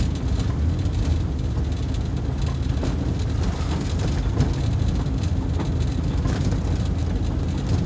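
Inside the cabin of a VW Voyage coasting downhill in neutral through heavy rain: a steady low rumble of tyres and an idling engine under the hiss and patter of rain on the windscreen and body.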